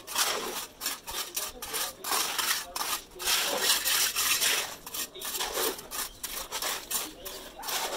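Wet concrete being spread and scraped by hand and with a metal pan across a septic tank's floor slab: a dense run of irregular rasping scrapes, loudest around the middle.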